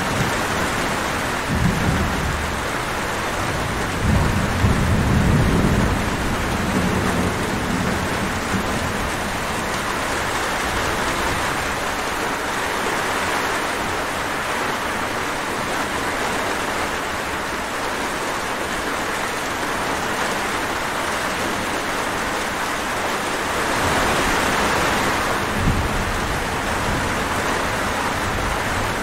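Steady heavy rainfall, with low rolls of thunder about two seconds in, again from about four to six seconds, and a weaker one near the end.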